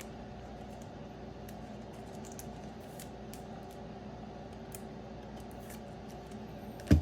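Faint scattered clicks and rustles of trading cards being handled, over a steady room hum. A brief louder low sound comes right at the end.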